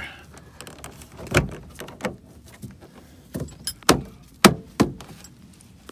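Plastic door-handle trim on a Mercedes T1N Sprinter door panel knocking and clicking as it is pressed back into its clips by hand: about six sharp clicks, the loudest about four and a half seconds in.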